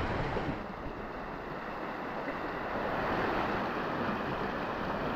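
Ocean surf washing and breaking over shoreline rocks, a steady rushing noise that builds slightly toward the end.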